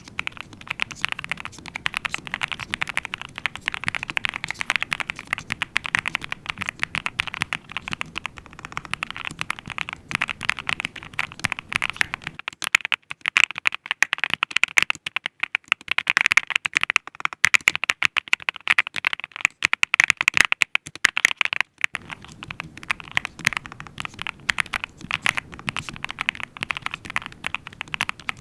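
Fast, steady typing on the NuPhy Halo65 V2 mechanical keyboard, a dense run of key clicks. About twelve seconds in the low background rumble drops away for roughly ten seconds while the typing goes on, then returns.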